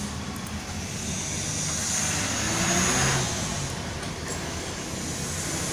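Cuyi MK630 vinyl cutter's carriage motor whirring as the cutting head is jogged to line its laser pointer up on a registration mark, louder for about a second near the middle.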